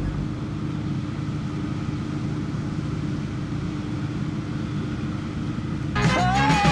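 Steady low mechanical hum and rumble with a faint constant tone, as from a vehicle or aircraft machinery. About six seconds in, upbeat music starts over it.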